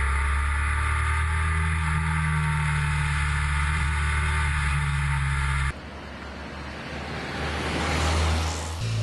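Motorcycle engine running at a steady pace with wind hiss. About two-thirds of the way through it cuts off abruptly, and a rushing noise with a low hum builds to a peak near the end.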